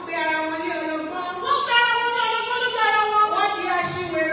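A woman's voice singing unaccompanied, holding long drawn-out notes.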